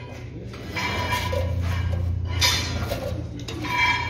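Pedestal spot welding machine with copper electrode arms giving a steady low electrical hum for nearly three seconds. Three short metallic clinks ring out over it, about a second apart.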